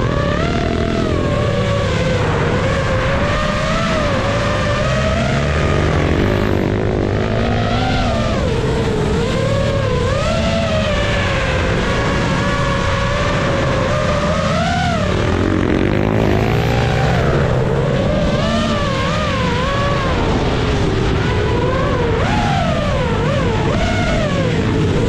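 FPV drone's electric motors and propellers whining, the pitch constantly rising and falling as the throttle changes, over a rough low rumble.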